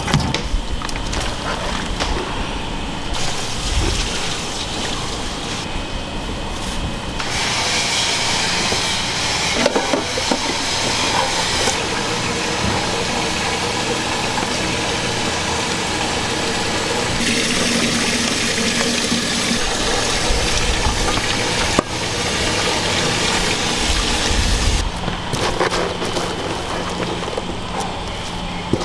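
Restaurant kitchen work: water running, with scattered knocks and clatter of utensils against pots.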